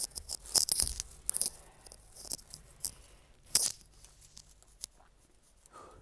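A bunch of keys on a carabiner jingling in the hand in short bursts, several times in the first few seconds and then dying away.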